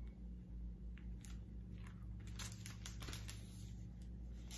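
Paper pages of a large picture book being handled and turned: soft rustles and small clicks, with one sharper click a little past halfway.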